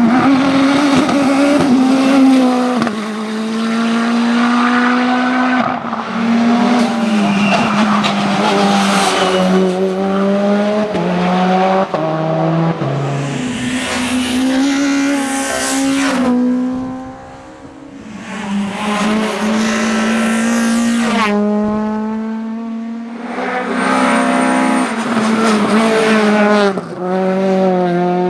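Racing car engines at high revs, climbing in pitch and then stepping down again and again as the drivers shift gears. It comes as a series of short clips that cut abruptly from one car to the next.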